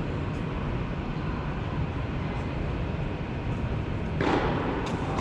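Steady rumbling room noise of a large indoor tennis hall, with a few faint distant knocks. The noise swells a little near the end.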